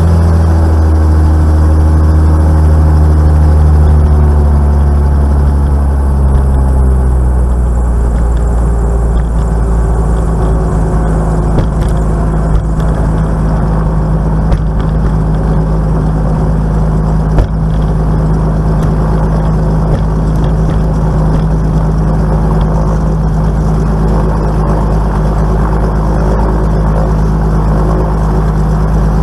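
The piston engine and pusher propeller of a Velocity aircraft, heard from inside the cockpit, coming down in revs over the first several seconds and then running steadily at low power as the plane rolls along the runway and turns off. A couple of sharp knocks stand out in the middle.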